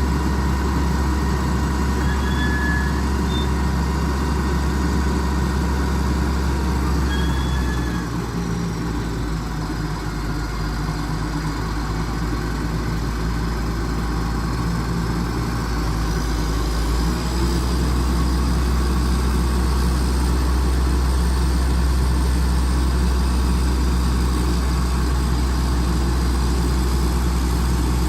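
PPM Terex A600 60-ton crane's diesel engine running steadily at idle. It eases off slightly about eight seconds in and picks back up a little past the middle.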